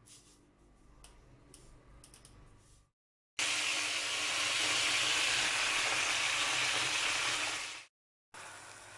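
A few light clicks and knocks of kitchen utensils, then a loud steady sizzle of food frying in hot oil for about four seconds that stops abruptly, followed by a quieter sizzle near the end.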